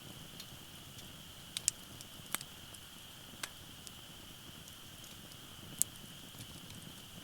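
Firewood burning in a campfire, crackling with scattered sharp pops, the loudest about a second and a half in and again near six seconds, over a low steady hiss.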